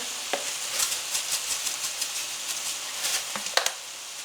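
Skillet of ground beef, pasta and tomatoes sizzling steadily, with light scattered clicks and taps. The loudest taps come about three and a half seconds in.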